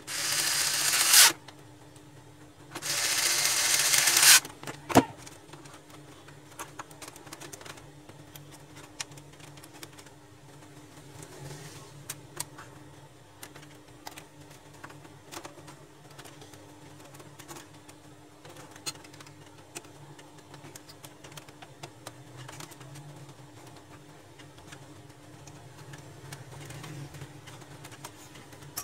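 Powered screwdriver driving two screws into the printer, two short runs each ending in a sharp snap, then one sharp click; after that only light clicks and taps of parts being handled over a steady low hum.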